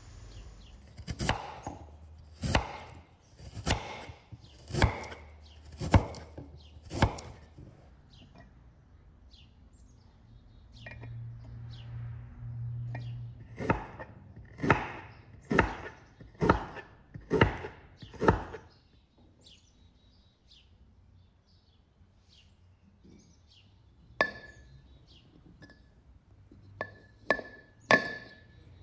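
Knife chopping fruit on a wooden cutting board: two runs of about six evenly spaced chops, roughly one a second. Near the end, a few sharp glass clinks with a brief ring.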